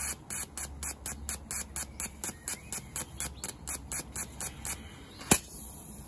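A petrol fuel injector pulsed open and shut by hand from a 12 V battery while aerosol carburettor cleaner is forced through it: a rapid, even run of short clicking spray bursts, about five a second, as the injector is cleaned. The bursts stop a little before the end, followed by one louder single click.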